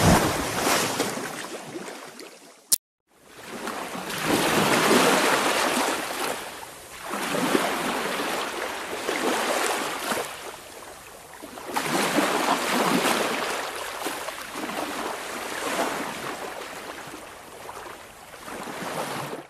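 Ocean surf: waves washing in and drawing back, swelling and ebbing about every four seconds. It cuts out briefly near three seconds in.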